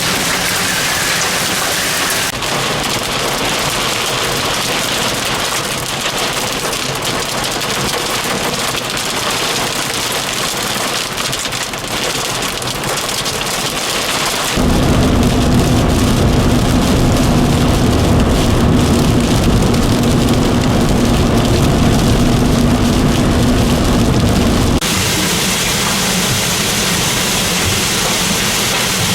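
Heavy storm rain pouring down, as a steady loud hiss across several cut-together clips. For about ten seconds in the middle a louder deep rumble joins it, stopping abruptly at a cut.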